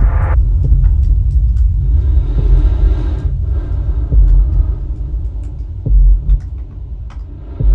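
Loud, deep rumbling drone with a few heavier low booms, about four and six seconds in and again near the end, and scattered faint clicks above it.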